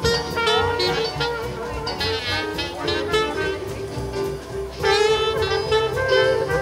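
Live small jazz band playing: trumpet over double bass, with saxophone.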